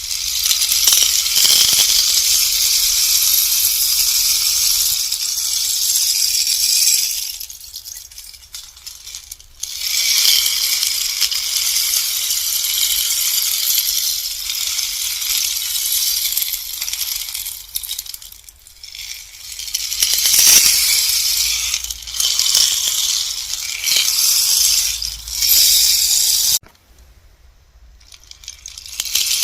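Bamboo rainstick being turned, its pellets trickling down inside in a steady, high, rain-like patter. The flow dies away twice as the fill runs out, then starts again when the stick is tipped over. Near the end it stops abruptly for about two seconds.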